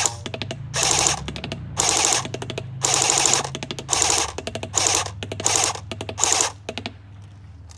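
Battery-powered Kalashnikov AK-47 airsoft electric rifle firing full-auto in about eight short bursts, each a rapid rattle of shots lasting under half a second, with a few single shots in between.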